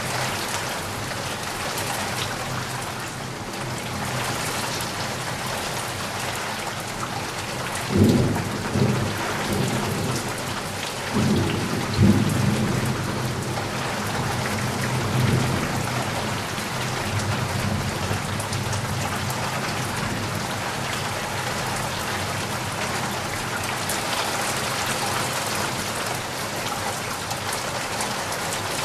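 Heavy rain falling steadily, with several deep rumbles of thunder about a third of the way through, the loudest two about four seconds apart.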